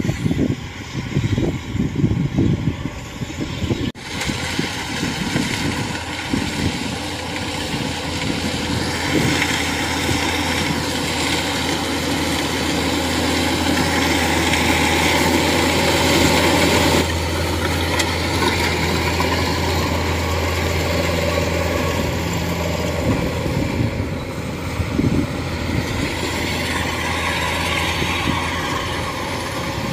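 Kubota DC-105X rice combine harvester running steadily while cutting rice: a constant low engine drone with broad machinery noise. Irregular low rumbles over the first few seconds.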